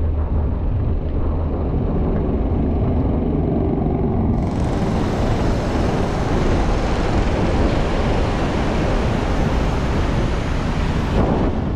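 Car driving on a wet road in rain, with a steady low road rumble. A loud hiss of rain and tyre spray starts suddenly about four seconds in and cuts off shortly before the end.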